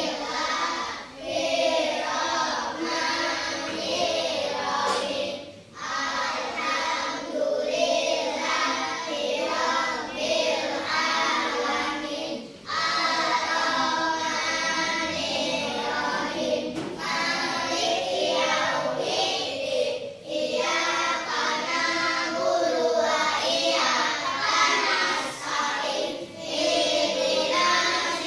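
A group of children singing a song together, phrase after phrase, with short breaks between the lines.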